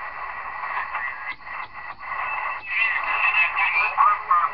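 Cobra 148F CB radio, converted to the 40-meter amateur band, receiving through its speaker: band static and hiss with snatches of warbling, off-tuned voice signals. The audio jumps briefly as the channel selector is stepped up through the frequencies.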